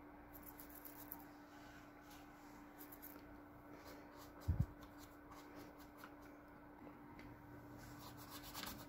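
Faint, scratchy strokes of a brush laying oil paint on canvas, with a dull low thump about halfway through and a faint steady hum underneath.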